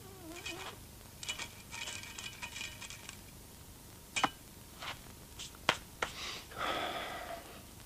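Light metallic tinkling clicks, a quick run of them with faint ringing, then a few separate sharp clicks and a short rustling scrape near the end: sound effects for thin wire bending and moving.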